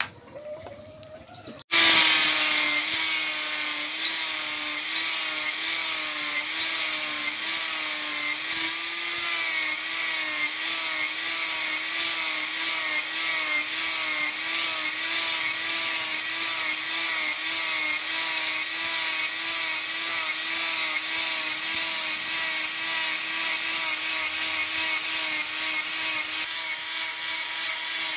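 Electric angle grinder with a sanding disc sanding a steel axe head: a steady motor whine that wavers slightly under load, over a hissing scrape. It starts abruptly about two seconds in.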